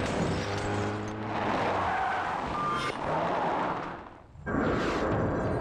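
Action-film sound effects of a car, engine noise and tyres skidding, in a dense, loud mix. The sound drops away briefly about four seconds in, then comes back loud.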